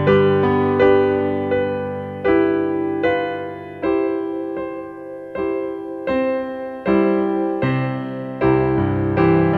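Background music: a slow piano melody, single notes struck a little more often than once a second, each ringing and fading before the next.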